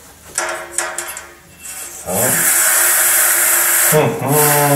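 Plastic-bristle radiator brush scrubbing between the ribs of a sectional heating radiator: a loud, steady scratchy rasp that starts about two seconds in, after a few light handling clicks.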